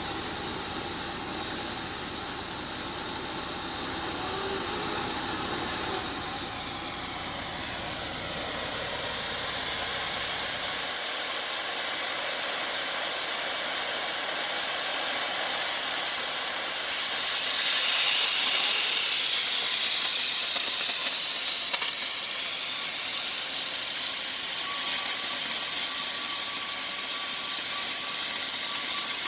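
Oxy-fuel gas cutting torch hissing steadily, a little louder partway through.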